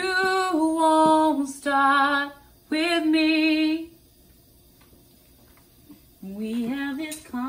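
A woman singing unaccompanied in long held notes: three short phrases, a pause of about two seconds, then two more phrases.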